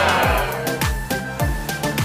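Electronic background music with a steady, booming kick-drum beat, about two beats a second, and a falling sweep sound at the start.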